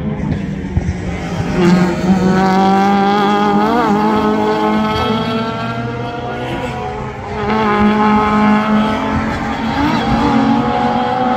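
Classic touring race cars' engines running at high revs as they pass on the circuit, loud twice, about two seconds in and again about seven seconds in, the pitch sliding slowly down as each goes by.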